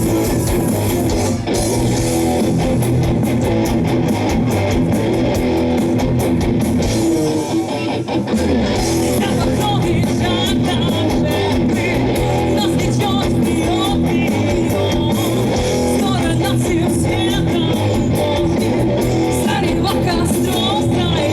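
Rock band playing live, electric guitars to the fore over a full band. The music dips briefly about eight seconds in, then carries on at full level.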